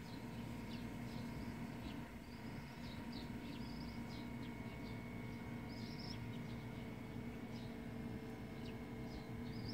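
Small birds chirping in short, repeated high calls, with a few longer high notes, over a steady low hum.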